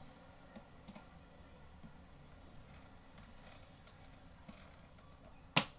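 Scattered faint clicks and light knocks of plastic fan parts being handled, with one sharp, much louder click near the end.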